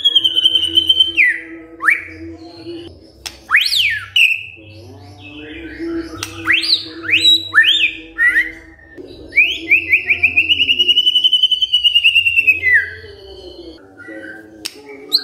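White-rumped shama singing a loud, varied song of clear whistles. It opens on a high rapid trill, throws in quick sweeping notes that rise and fall, and about two thirds of the way through runs a long, fast trill.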